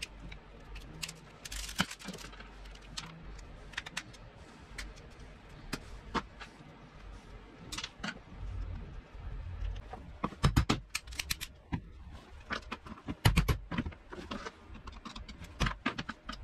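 Small metal parts and a screwdriver clicking and clinking while a flexible-shaft handpiece is worked apart by hand; irregular sharp clicks, with the loudest knocks about ten and thirteen seconds in.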